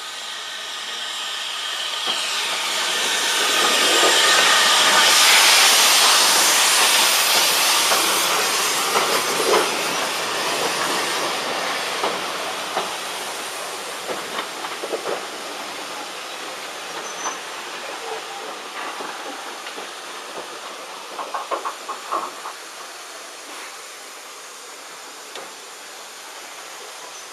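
Steam tank locomotive arriving at a platform: a loud hiss of steam swells to a peak about five seconds in and then fades as it passes close by. The coaches follow with clicks and clanks of wheels over the rail joints, a cluster of them about twenty-two seconds in, as the train slows.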